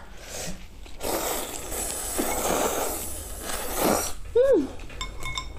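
Buckwheat noodles being slurped in one long, loud draw of about three seconds, followed by a short hummed "mm".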